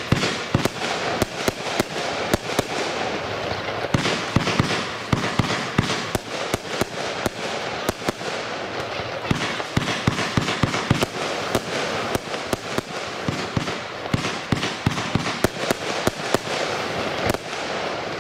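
A 36-shot 'Out of Limits' fireworks cake firing: a continuous run of sharp shots and bursts, one after another, with a steady hiss between them.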